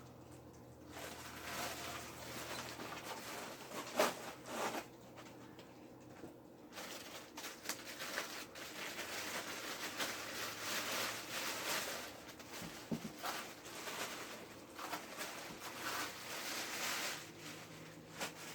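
Rustling and crinkling of packaging being handled and pulled off, with scattered clicks and a sharp knock about four seconds in.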